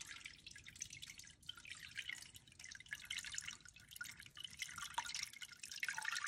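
Small tabletop fountain running faintly: water from a submersible pump falling over pebbles into the bowl, with soft, irregular splashing and dripping.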